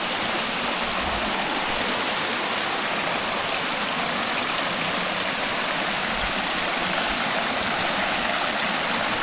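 Creek water rushing steadily over rocks as a small cascade into a shallow rock pool: an even, unbroken wash of water.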